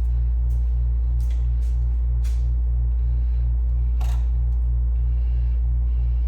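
Steady low electrical hum that throbs about three times a second, with scattered light clicks and rustles over it.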